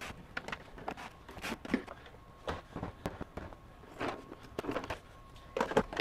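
Irregular hard plastic clicks and knocks, with the rustle of a ribbed hose, as the hose and power head of a Ryobi 18V 3-gallon wet/dry vacuum are handled and lifted off its container. The vacuum is not running.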